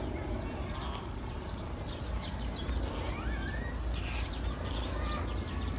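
Small birds chirping in short rising and falling calls over a steady low rumble, with scattered light clicks.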